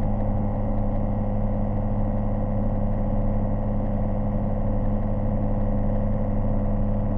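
Small electric underwater thruster motors running at a constant speed, a steady hum of fixed pitch.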